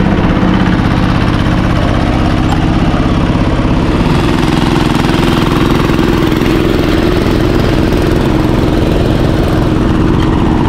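Diesel-engined walk-behind rotary cultivator running steadily, its engine note shifting higher about four seconds in.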